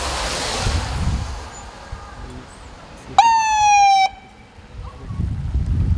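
A police car's electronic siren gives one short blast of just under a second, about halfway through. It jumps up in pitch, slides slightly down, then cuts off sharply. Before it, a car swishes past on wet pavement.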